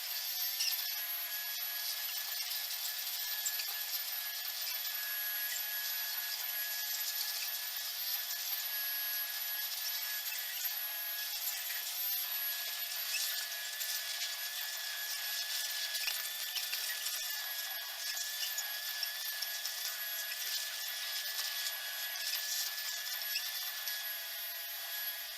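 Vacuum cleaner running steadily with a high-pitched motor whine, its nozzle rubbing and scraping over the tiled floor.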